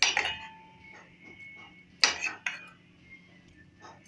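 A utensil clinking against a stainless steel mixing bowl as curd is added: one sharp clink at the start and two more about two seconds in, each with a short metallic ring.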